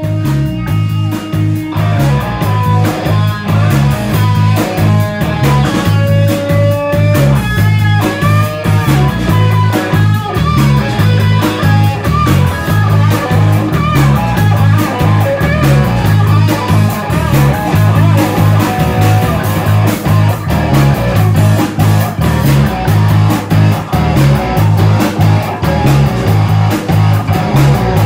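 Live rock band playing: an electric guitar lead with bending notes over a driving bass-guitar line and a drum kit.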